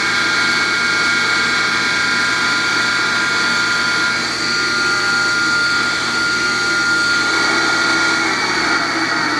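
Clausing 15-inch drill press head running free on its three-phase motor, belt on the highest speed so the spindle turns at 1200 RPM: a steady running sound with several high steady tones. One of the tones stops about eight seconds in.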